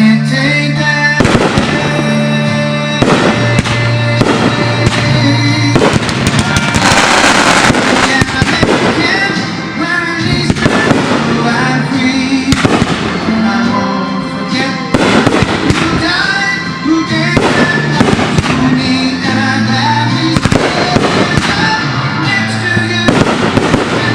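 Fireworks bursting repeatedly over loud recorded music, with a dense stretch of crackling about seven seconds in.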